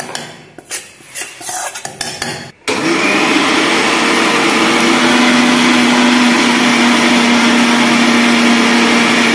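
A spoon scrapes and knocks against a steel mixer-grinder jar for about two and a half seconds. Then a Blue Leaf electric mixer grinder starts and runs loud and steady, grinding roasted coconut with roasted coriander and chillies, its hum settling slightly lower a couple of seconds after it starts.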